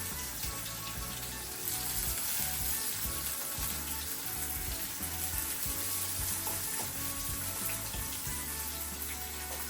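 Whisked eggs frying in a pan with a steady sizzle, over soft background music.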